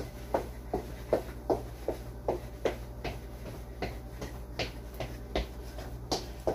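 Feet stepping rhythmically on the floor during a workout, about two and a half steps a second, over a steady low hum.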